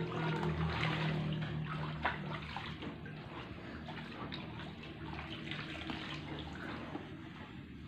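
Water sloshing and splashing as someone wades barefoot through a shallow azolla-covered pond, with a few small splashes along the way.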